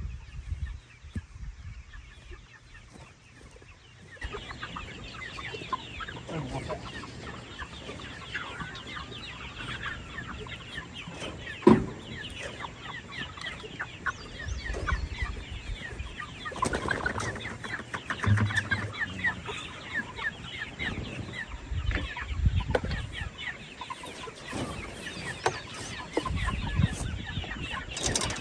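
A flock of chickens clucking busily, the calls thickening into a steady chatter about four seconds in. There is one sharp knock near the middle, and a few dull low thuds.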